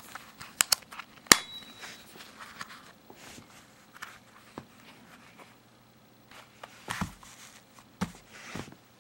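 Handling of a knife and its leather belt sheath. A few sharp metal clicks come in the first second and a half, the loudest with a brief high ring. Then soft rustling and light knocks follow as the sheath is handled and its metal snap closed.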